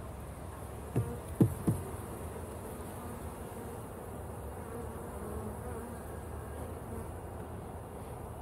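Honeybees buzzing over an open hive in a steady hum. About a second in come three sharp knocks, close together.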